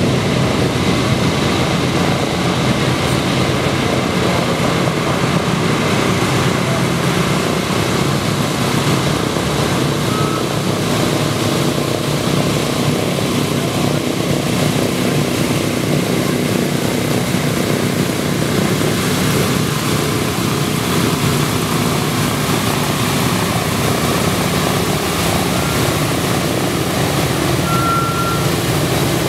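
Boeing B-17's four Wright R-1820 Cyclone nine-cylinder radial engines and propellers running steadily at taxiing power, a continuous deep engine rumble.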